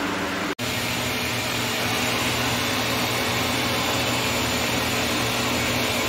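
Shop vac running steadily, picking up water from a leak on the floor. The sound cuts out for an instant about half a second in, then carries on unchanged.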